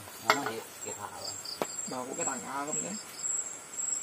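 Forest insects, crickets, trilling steadily at a high pitch, with a sharp click near the start and another about a second and a half in.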